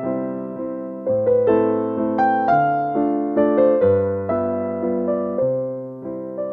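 Background instrumental music: a melody of struck notes that ring and fade, over low bass notes that change every second or so.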